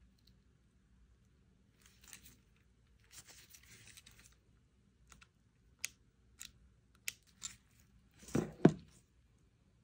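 Gloved hands handling a SmallRig quick-release camera side handle: soft rustling and scraping, then a few sharp clicks from its metal and plastic parts. Near the end come two heavier knocks as the handle is set down on its cardboard box.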